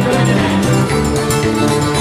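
Live folk-rock band playing a sea shanty as an instrumental passage, with no singing: fiddle, electric guitar and bass guitar over a steady beat.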